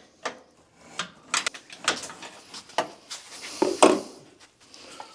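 Irregular clanks and knocks of hand tools and metal parts being handled while unbolting a truck's front end, the loudest knock about four seconds in.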